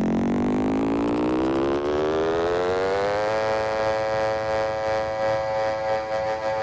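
Electronic dance music: a buzzy synthesizer note slides steadily up in pitch for about three seconds, then holds steady on a single note.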